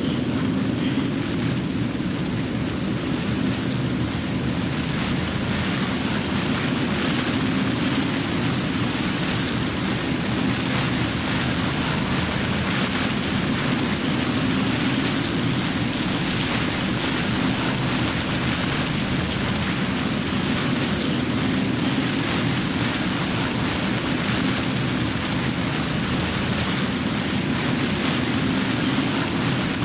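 Steady, unbroken storm noise: a dense rushing hiss over a low rumble, with no separate events.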